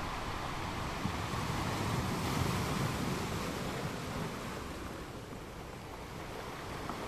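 Wind blowing across the microphone: a steady rushing noise with low buffeting that swells a couple of seconds in and eases off later.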